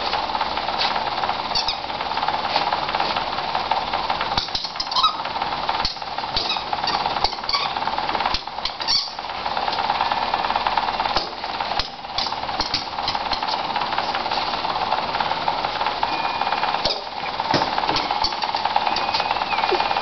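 Steady machine-like hum with scattered short clicks and knocks.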